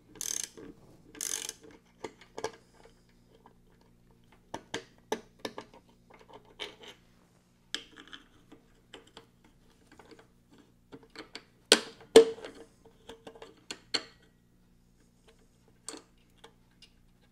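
Hand tools working the oil-tank mounting bolts off a motorcycle frame: scattered metal clicks and clinks, with two sharp metal knocks, the loudest sounds, about twelve seconds in.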